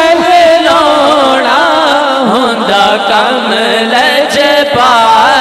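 A man's voice chanting a Punjabi devotional kalam through a microphone, in long ornamented phrases with the pitch winding up and down.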